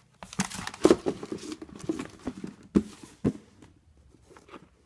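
Sneakers and their cardboard shoebox being handled: a quick run of light knocks and thumps for about three seconds, then a few faint taps.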